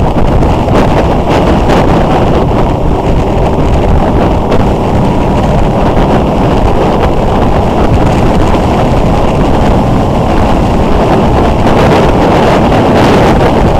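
Steady rush of wind buffeting the microphone of a motorcycle-mounted camera at road speed, with the motorcycle's engine running underneath without obvious revving.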